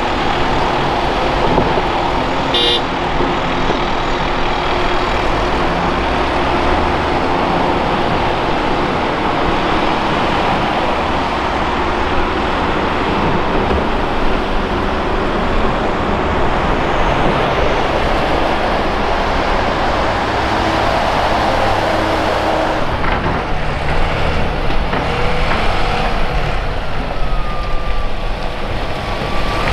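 Diesel engines of a Volvo ECR235E tracked excavator and a Volvo A30G articulated hauler running steadily under load as the excavator digs, a dense mechanical din. A brief high tone sounds about two and a half seconds in.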